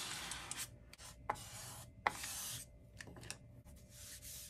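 Plastic squeegee card scraping over a paper-feel screen protector on an iPad, pushing out air bubbles: several bouts of scraping with a few sharp clicks. Near the end, a cloth rubbing over the protector.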